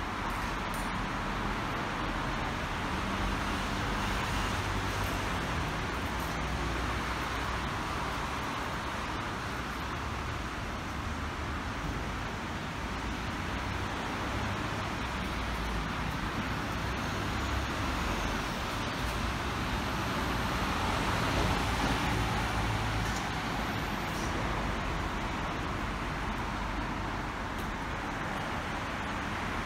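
Steady traffic noise and station hum, with an electric train rolling slowly in toward the platform, its low rumble swelling a little now and then.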